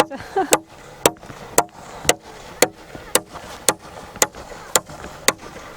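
Steady hammering: a heavy iron hammer driving nails into a wooden bench, about two blows a second, each with a short metallic ring.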